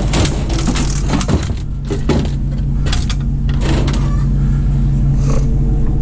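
Idling truck engine humming steadily underneath a series of sharp clatters and knocks, the sound of scrap being handled close by.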